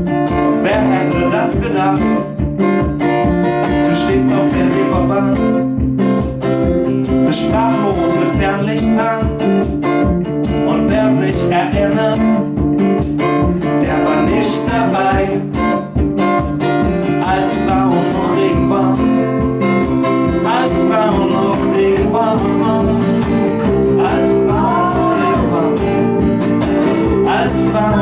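Live band music: guitar over a steady beat, with a melody line on top, in a passage with no sung words.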